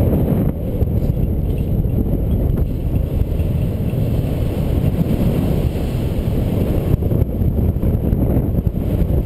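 Airflow buffeting the microphone of a camera on a paraglider in flight: loud, steady wind noise that sits low in pitch.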